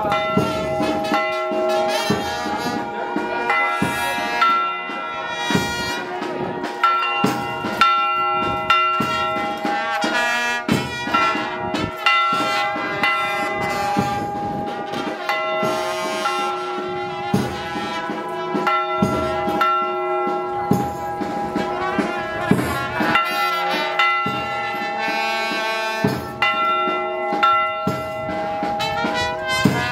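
Church bells tolling for a funeral: several bells struck over and over, their ringing tones overlapping and sustaining between strikes.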